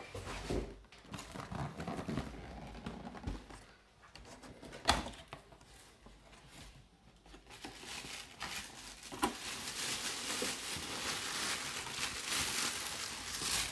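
Cardboard replica-helmet box being handled: rustling and crinkling, with a sharp knock about five seconds in and a steadier scraping hiss over the last few seconds.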